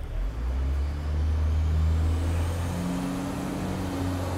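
A motor vehicle driving past on the street: a deep engine rumble swells over the first two seconds, then the engine note climbs in pitch as it accelerates away.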